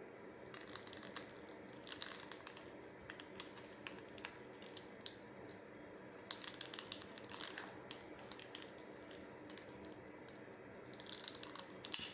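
Bursts of small clicks and crinkling from objects being handled, in four clusters, over a low steady hum.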